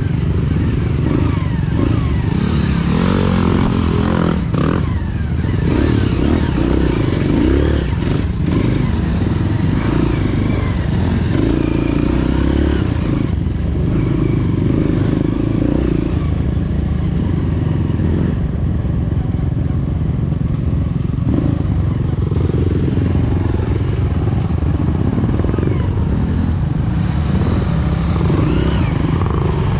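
Trail motorcycle engine running continuously, its pitch rising and falling with the throttle. A couple of sharp knocks come in the first few seconds.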